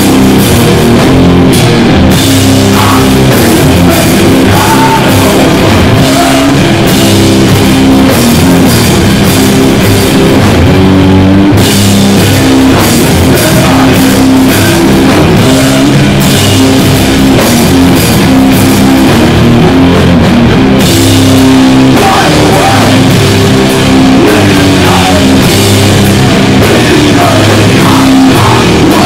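Sludge/doom metal band playing live and loud: heavily fuzzed electric guitar and bass riffing over drums with constant crashing cymbals.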